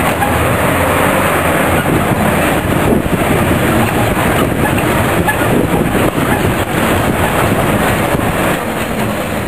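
Loud, continuous rumbling noise of wind buffeting a moving camera's microphone, gusty and uneven throughout.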